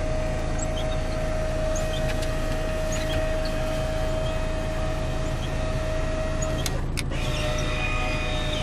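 Electric windscreen sun blind in an Iveco Stralis truck cab: its motor whines steadily as the blind lowers. The motor stops with a couple of clicks about seven seconds in, then starts again at a slightly lower pitch as the blind reverses.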